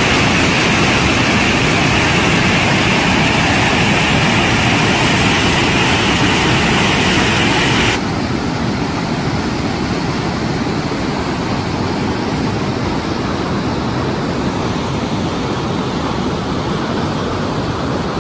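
Floodwater rushing in a steady, dense torrent. About eight seconds in, it cuts off abruptly to a quieter, steady rushing noise.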